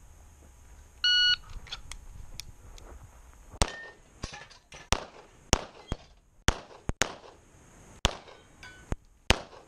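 A shot timer's start beep about a second in, then a few seconds later a string of about ten shots from an STI Trojan 1911-style pistol in .40 S&W loaded to major power factor, fired about two a second with short pauses between groups.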